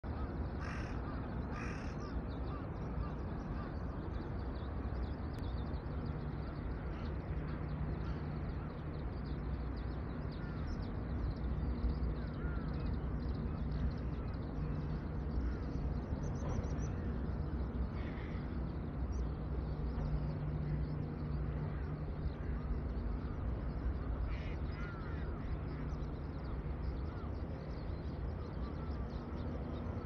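A flock of crows cawing, with two loud caws about a second apart at the start and scattered calls through the rest, over a steady low rumble.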